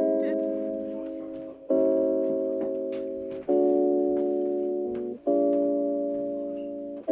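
Background music: soft keyboard chords, a new chord struck about every second and three-quarters and fading away before the next.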